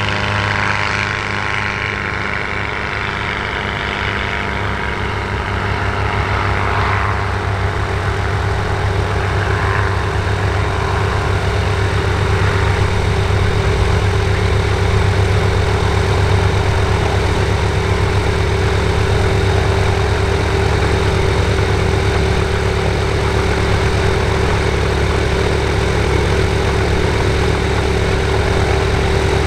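Steady low drone of an idling engine that grows slightly louder. Over the first several seconds the higher-pitched engine and propeller of a Sonex homebuilt light aircraft on its take-off run fade away under it.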